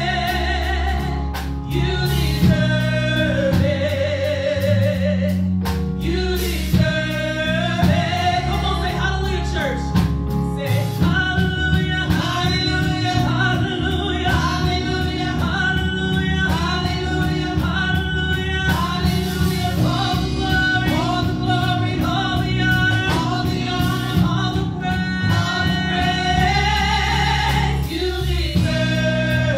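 A woman singing a gospel song through a handheld microphone over instrumental accompaniment with sustained low notes. She holds long notes with vibrato, then sings quicker, shorter phrases from about eleven seconds in.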